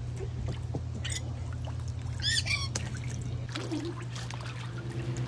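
Dog's squeaky toy squeaking: once briefly about a second in, then several quick high squeaks in a row just after two seconds, over splashing and trickling water in a kiddie pool. A steady low hum runs underneath.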